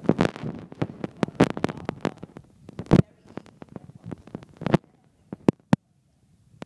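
A string of sharp, irregular knocks and clicks that thins out and dies away near the end.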